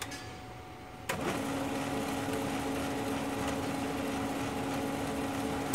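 HP LaserJet 1320 laser printer starting a print with a click about a second in, then its mechanism running with a steady hum as it picks and feeds a sheet of paper, with a sharp click near the end. The paper pickup is working again now that the stuck part has been freed.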